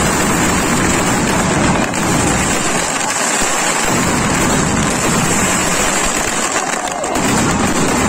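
Fireworks going off continuously, a loud dense noise that holds steady throughout with no break.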